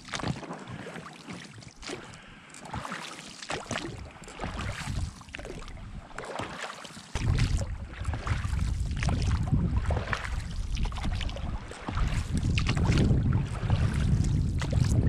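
Oars splashing and dipping as a small one-person PVC inflatable rowboat is rowed across open water. From about seven seconds in, wind rumbles heavily on the microphone over the water sounds.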